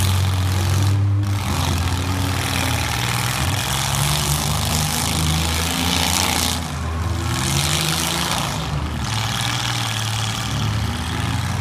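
Compact demolition derby car engines running, a steady low drone with the pitch rising and falling as they are revved.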